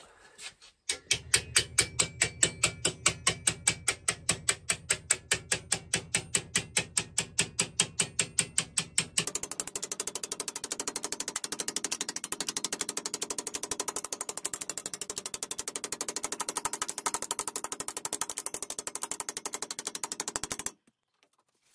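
Hammer blows on a strip of sheet metal, folding a flange over a workbench edge: steady strong strikes about five a second, then from about halfway quicker, lighter blows, stopping abruptly near the end.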